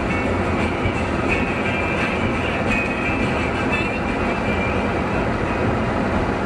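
Car driving slowly along a city street, heard from inside the cabin: a steady rumble of engine and tyres on the pavement, with a thin high tone that comes and goes.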